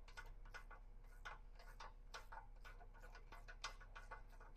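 Ratchet wrench clicking faintly as a heat-loosened exhaust bolt is backed out, irregular clicks about four a second.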